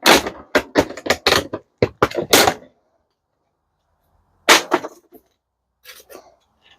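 A rapid run of sharp clicks and knocks, then a pause and a louder clatter with a few fainter knocks, as a dishwasher's plastic and metal parts are pried and broken apart by hand.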